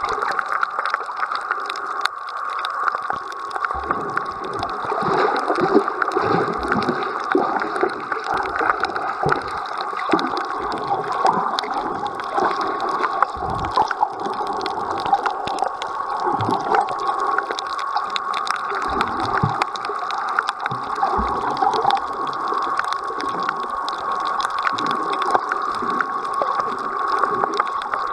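Underwater sound picked up by a submerged camera: a steady, muffled rush and gurgle of moving water, with frequent small clicks and crackles, occasional low thumps and a faint steady high tone throughout.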